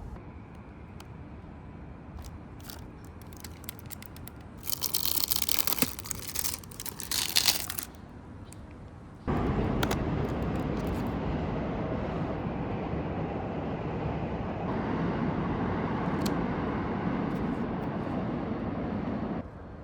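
Plastic food packaging crinkling and tearing for about three seconds, among scattered light clicks. Then a steady rushing noise that starts suddenly and cuts off suddenly near the end.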